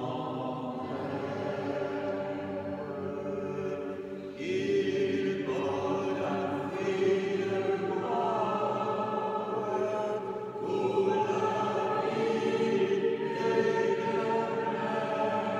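A choir singing a slow liturgical chant in long held notes, moving to new notes about four and eight seconds in.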